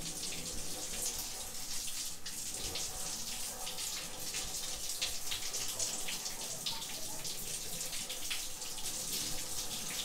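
A stream of water splashing onto a Sharp air conditioner's plastic-framed mesh air filter as fingers rub it, rinsing out the dust. It makes a steady hiss with small splashes throughout.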